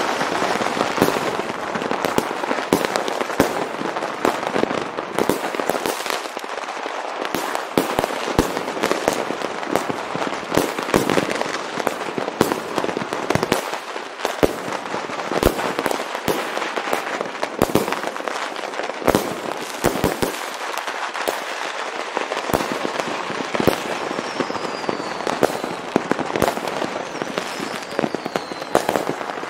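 Many fireworks and firecrackers going off at once across a town: a dense, unbroken crackling with frequent sharp bangs. Near the end, a couple of faint whistles fall in pitch.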